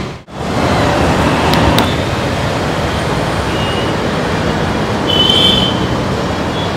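Steady road-traffic noise, broken by a brief dropout at the very start, with a short high tone about five seconds in.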